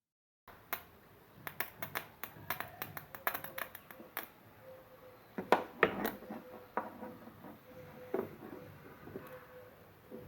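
Irregular small clicks and taps of small objects being handled, a cluster of them about five to six seconds in, over a faint steady hum.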